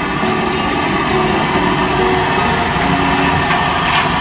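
Fishing boat's engine running steadily, with a light click near the end.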